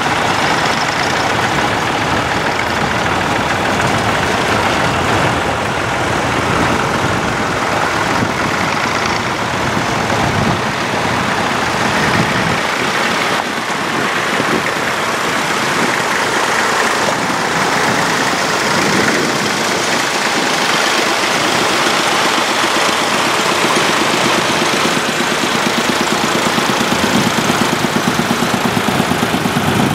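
Engines of a procession of vintage tractors, red Massey Fergusons and blue Fordson Majors, running at low road speed as they drive past one after another, each swelling as it comes close. Near the end a slow, even engine beat stands out as a Fordson Major passes close by.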